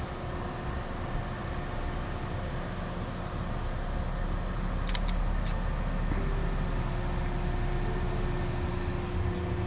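Steady rumble of a motor vehicle running, growing louder partway through, with two sharp clicks of a Fujifilm GFX 100S camera shutter firing a fraction of a second apart about five seconds in.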